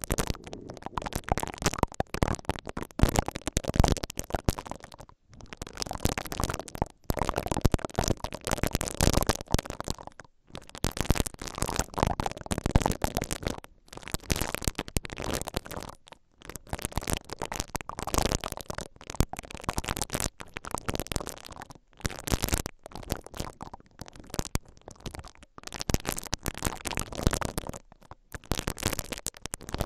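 Silicone bristle ear picks rubbing and twisting inside the mesh grilles of a stereo X/Y microphone, making dense, close scratchy rustling right on the capsules. It comes in strokes of one to a few seconds with short breaks between them.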